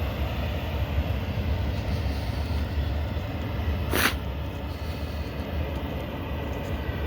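Long freight train rolling past at speed, a steady low rumble of wheels on rail, with one sharp clack about four seconds in.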